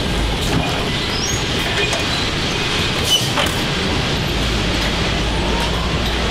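Car assembly-line factory ambience: a steady machinery hum and rumble with scattered clicks and clanks, and one sharper click about three seconds in.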